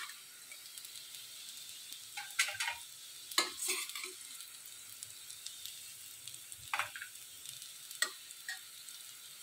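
Fried bitter gourd slices sizzling faintly in a stainless steel kadhai while a perforated metal spatula stirs and lifts them, scraping and clinking against the pan a few times.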